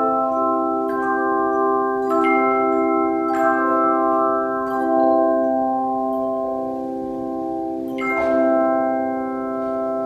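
Handbell choir playing: chords of ringing handbells struck every second or so over a sustained low bell. About eight seconds in, a louder chord is struck and left ringing, slowly fading.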